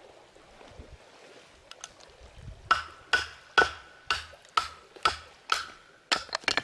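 Wooden baton striking the spine of a Fallkniven F1 fixed-blade knife to drive it down through a stick of hardwood: about ten sharp knocks, roughly two a second, each with a brief metallic ring from the blade, coming faster near the end. The wood is very hard, with a knot in it.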